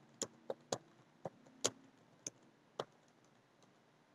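Computer keyboard keystrokes: about seven separate, irregularly spaced clicks as a short command is typed, stopping after about three seconds.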